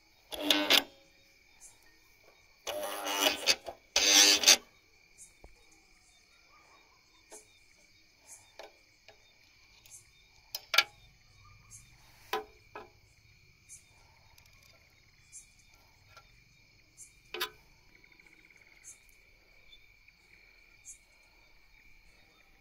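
Crickets chirring steadily at night, with a few seconds of a voice near the start, then scattered sharp clicks and taps of a screwdriver on a motor starter's contactor terminals.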